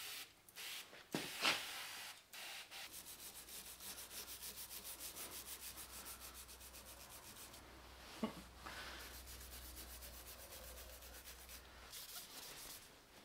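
A small plastic brush scrubbing the grimy metal carriage of a Weiler LZD 220 lathe in quick, even back-and-forth strokes, about six a second, then slower rubbing. There is a single sharp knock about eight seconds in.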